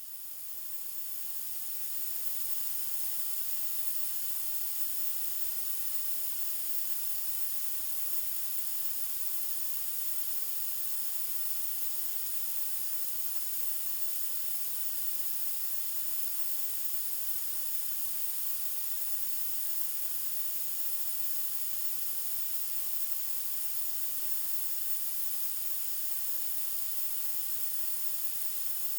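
White noise: a steady, even hiss, brightest in the high treble, fading in over the first two seconds and then holding constant.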